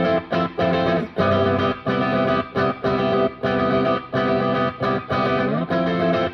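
Electric guitar played through a Becos CompIQ Mini Pro analog compressor pedal: rhythmic chords in short stabs with brief gaps between them, and a rising slide about five seconds in.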